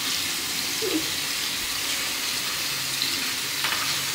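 Tap water running steadily into a bathroom sink, a constant hiss.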